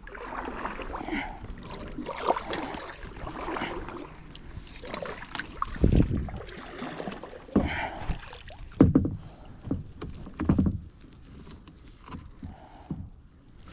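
Water sloshing and splashing around a kayak, with a few dull knocks of gear against the hull about halfway through.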